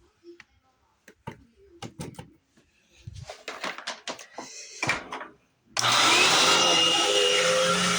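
Clicks, knocks and rustles of handling for about five seconds, then the Dirt Devil Classic vacuum cleaner's motor starts abruptly about six seconds in and runs loud and steady with a high whine.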